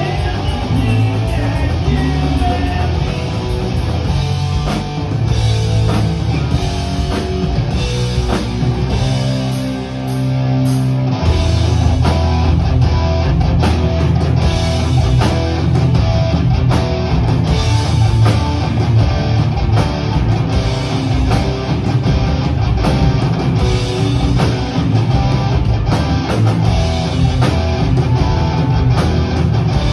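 Punk rock band playing live: two distorted electric guitars, bass and drum kit, loud. About nine seconds in, the bass and drums drop away under a held guitar chord, and the full band comes back in about two seconds later.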